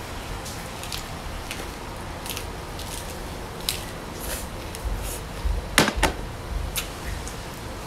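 Close-up eating sounds: chewing bánh xèo wrapped in mustard greens, with scattered short clicks and crackles, the loudest about six seconds in.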